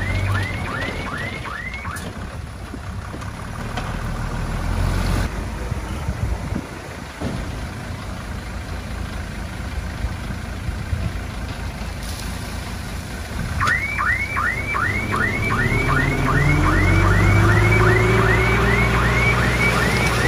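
Heavy diesel machinery running, with a vehicle's warning alarm sounding rapid rising chirps, about three a second, for the first couple of seconds and again from about two-thirds of the way in. Near the end an engine speeds up, its pitch rising.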